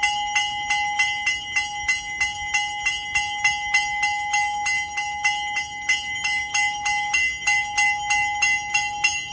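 A temple bell rung continuously and rapidly, about two to three strokes a second, its ringing tone held between strokes. It is the bell sounded during the arati, the waving of the lamp before the deity.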